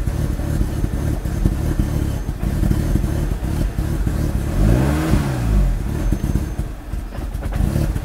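Audi S3's 2.0 TFSI turbocharged four-cylinder running very spluttery and uneven on its first start after a cam chain replacement, its note rising and falling once about five seconds in. The rough running turned out to be caused by vacuum lines left unconnected.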